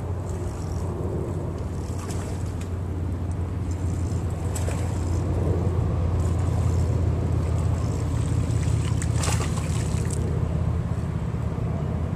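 Boat motor running steadily with a low hum, with a few faint clicks over it.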